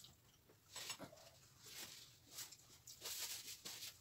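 Faint eating noises at a dinner table: scattered soft clicks and rustles, a little denser in the second half.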